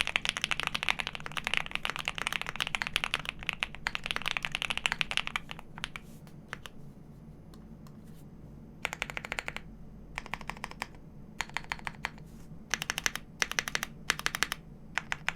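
Typing on a custom mechanical keyboard with lubed Alpaca linear switches on 65g springs in a PC plate, under GMK keycaps: fast, continuous keystrokes for about the first five seconds, then a pause of a couple of seconds, then short bursts of a few keystrokes each, about once a second.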